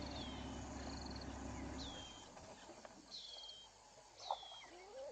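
Birds calling in the bush: a whistle that falls in pitch, repeated about once a second, with short trilled notes between. A low steady hum cuts off about two seconds in, and a single sharp click comes about four seconds in.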